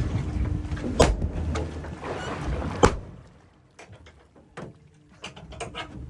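Two sharp knocks against a fishing boat about two seconds apart, over a steady rumble. Then it goes quiet, with scattered light taps and clicks.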